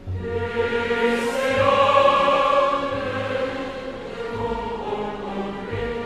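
Background choral music with long held chords, swelling to its loudest about two seconds in and then easing off.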